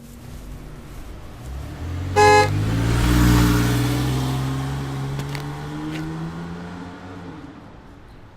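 A car drives up and past, its horn honking once briefly about two seconds in; the engine note then slowly falls in pitch and fades away.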